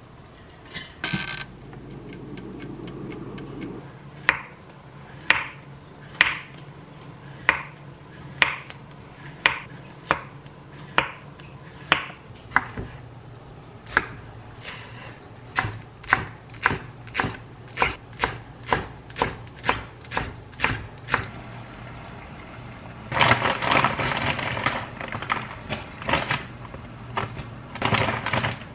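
Chef's knife slicing a Korean zucchini on a wooden cutting board: a long series of sharp knocks, about one a second at first and quickening to about two a second. Near the end, a few seconds of steady rushing noise.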